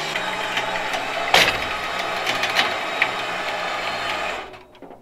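A tow truck's boom winch runs steadily, lifting the front of a disabled Jeep on chains, with a few sharp metal clanks, the loudest about a second and a half in. It stops shortly before the end.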